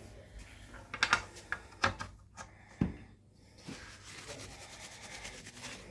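Small metal parts of an oil-friction test rig clicking and knocking several times as the steel test roller and its bearing are handled and taken off. After that comes a soft, steady rubbing as a paper towel wipes oil off the metal.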